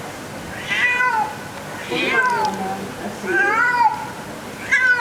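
Domestic cat meowing repeatedly, four drawn-out meows about a second and a half apart, each rising and falling in pitch.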